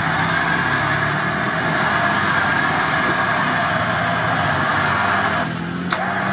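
Toyota FJ Cruiser's 4.0-litre V6 running under load as the 4x4 pushes slowly through deep water and mud, with a steady churning, splashing noise from the wheels. A single sharp click near the end.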